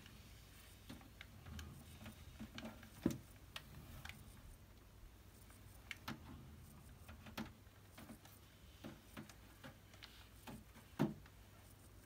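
Faint, scattered clicks and ticks in a quiet small room, with two louder soft knocks, about three seconds in and again near the end.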